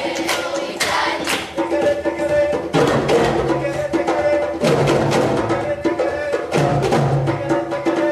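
A children's ensemble of African hand drums, djembes among them, plays a rhythmic pattern of quick hand strikes, with a deeper beat about every two seconds from about three seconds in. Children's voices sing along.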